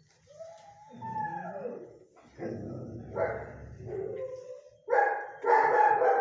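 A long-coated German shepherd-type dog howling and "talking" in a run of drawn-out calls that glide up and down in pitch. The last two calls, near the end, are the loudest.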